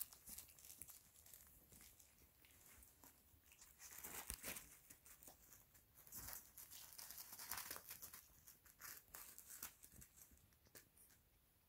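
Faint rustling and crinkling, with small scattered clicks and soft scuffles.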